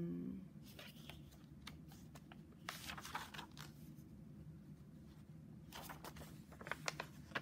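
Pages of a picture book being flipped and turned by hand: papery rustles and flicks in a few short bursts.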